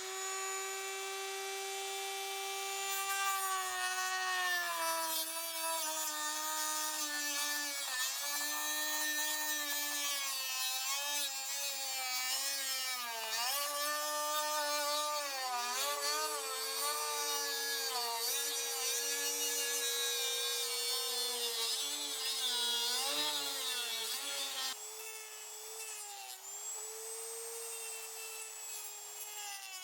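A power tool's motor whining steadily, its pitch dipping and recovering again and again as it is loaded, with a rasping edge above the whine.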